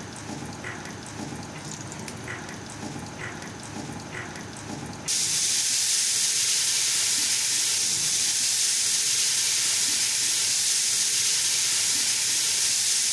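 A cooking pot hisses loudly and steadily, starting abruptly about five seconds in. Before that there is a quieter stretch of low rumble with faint ticks about once a second.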